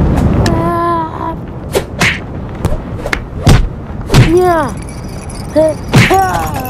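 Cartoon fight sound effects: a run of sharp hits and thuds, the loudest about three and a half, four and six seconds in, with short squeaky cries that rise and fall in pitch between them.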